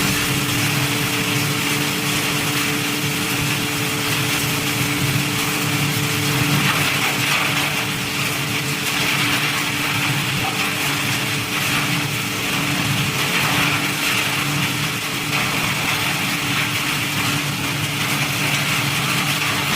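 Wood sawdust machine (wood crusher) running steadily: a constant mechanical hum under a dense hiss.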